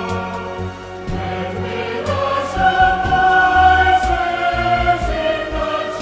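Background choral music: a choir singing long held notes, swelling to its loudest midway.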